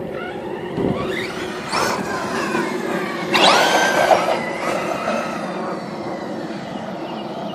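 Electric motor of an RC monster truck on a 4S LiPo whining as the truck accelerates and slows, its pitch rising and falling several times, with the loudest run-up about three and a half seconds in.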